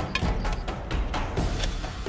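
Dramatic background music driven by heavy drums, with frequent sharp percussive hits several times a second.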